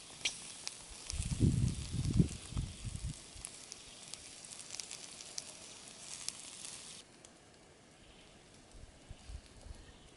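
Pork skewers sizzling over glowing wood embers, a steady hiss with sharp crackles, cutting off suddenly about seven seconds in. A few loud low thuds about one to three seconds in.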